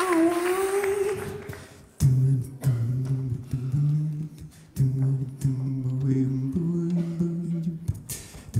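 Unaccompanied voices in improvised a cappella singing. A single sung note slides upward in the first second or so, then a low male voice hums a short bass figure into a microphone, repeated in rhythmic phrases.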